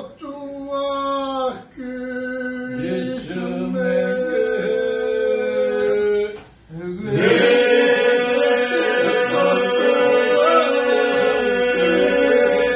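Men singing a Lab polyphonic song (këngë labe) unaccompanied: voices moving over a steady held drone. It breaks off briefly twice, about a second and a half in and again past the middle, then the whole group comes back louder on the drone.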